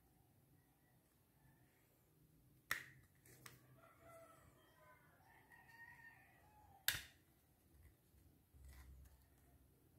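Two sharp clicks of a WE G34 gas blowback airsoft pistol being taken apart by hand, about three and seven seconds in, with faint handling ticks between them; otherwise near silence.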